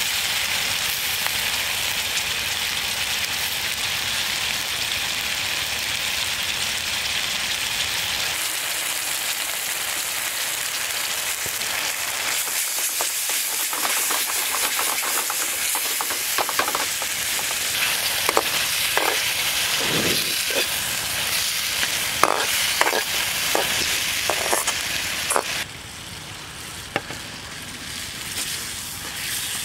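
Frog meat and lemongrass sizzling with a steady hiss in a steel frying pan on a portable gas stove. From about halfway through, a metal spatula scrapes and knocks against the pan as the food is stirred, and near the end the sizzle drops quieter.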